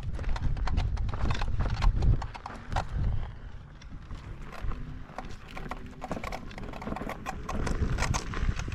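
KingSong S22 electric unicycle's suspension giving rapid, irregular little squeaks and clicks as it rides over trail bumps: dust getting into the suspension's rubber stoppers.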